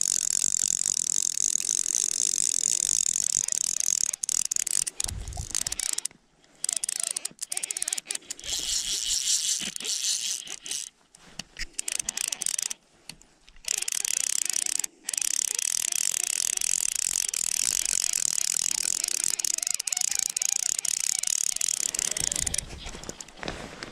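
Fly reel's ratchet clicking so fast it buzzes, in long runs broken by short pauses, as a strong hooked rainbow trout is played on the reel.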